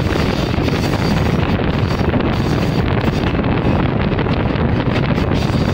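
Steady wind rush buffeting a microphone held out of a moving passenger train's window, over the low running rumble of the train.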